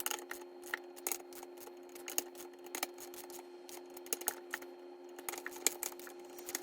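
A hand torque wrench ratcheting as beadlock ring bolts are tightened to 12 to 15 foot-pounds, with sharp, irregular clicks a few times a second. A steady hum runs underneath.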